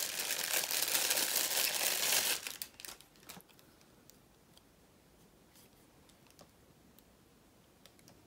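Packaging crinkling loudly for about two and a half seconds as a camera lens is unwrapped, then a few sharp clicks and scattered faint taps as the kit lens is handled.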